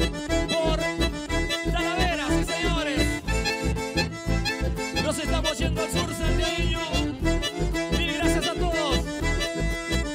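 Live band music in an instrumental passage: an accordion carries the melody over a steady bass and drum beat, with no singing.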